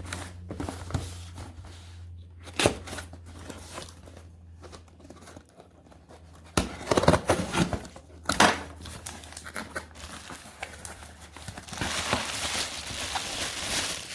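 A parcel's packaging being opened by hand: irregular crinkling and tearing of the wrapping with a few sharp handling knocks. A longer spell of crinkling comes near the end, over a steady low hum.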